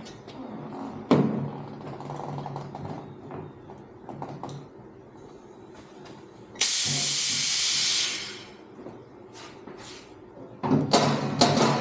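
Hand work on a motorcycle in a garage: scattered clicks and knocks of tools and parts, with one sharp knock about a second in. About two-thirds of the way through, a loud, steady hiss lasts over a second, and a cluster of metal clattering comes near the end.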